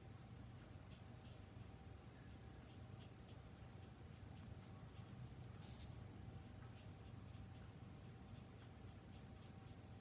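Alcohol marker (Stampin' Blends) nib scratching over cardstock in short, quick colouring strokes, several a second and uneven, faint against a low steady hum.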